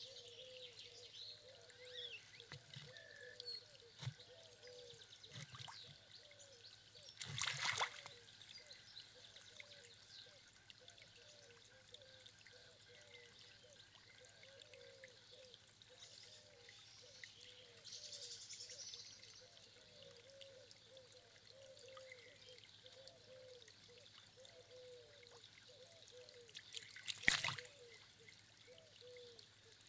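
Faint trickle of running water with birds chirping, and two short, louder noises, one about seven seconds in and one near the end.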